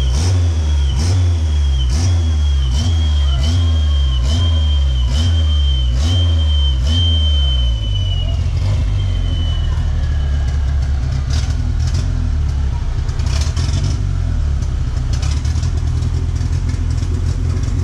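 Turbocharged Chevrolet Chevette engine held at high revs during a burnout, pulsing about twice a second, with a high whine over it. About eight seconds in, the pulsing stops and the engine runs on more steadily, with scattered sharp clicks.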